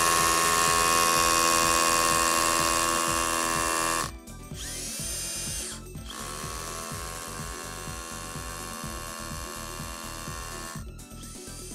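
Makita HR183D 18V cordless hammer drill boring a 3.4 mm hole into a concrete block: a motor whine over a fast hammering rattle. It runs hard for about four seconds, gives a short burst, then runs a longer, quieter stretch and stops near the end.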